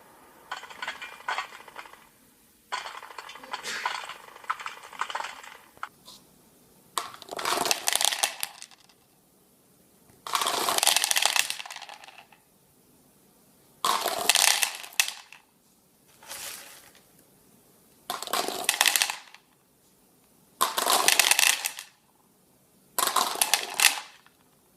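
Hand-made sound effects: quick clinking and rattling for the first few seconds, then a series of about seven separate bursts of harsh, crashing noise, each a second or so long, with short pauses between.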